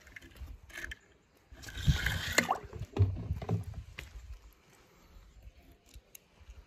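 Small die-cast toy car splashing into water about a second and a half in, followed by sloshing. A few light clicks of toy cars being handled near the end.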